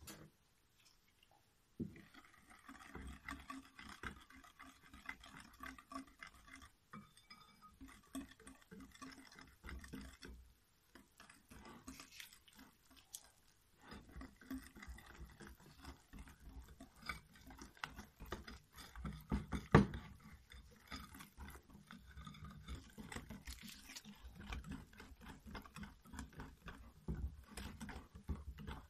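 Wire whisk stirring flour into a cocoa cake batter in a glass bowl: a faint, continuous run of soft irregular scraping and clicking strokes. It starts about two seconds in, with one sharper knock about two-thirds of the way through.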